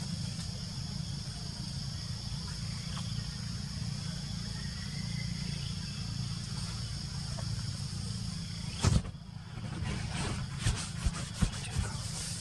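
Forest insects buzzing steadily over a low, steady rumble, with a sharp knock about nine seconds in and a few quieter clicks after it.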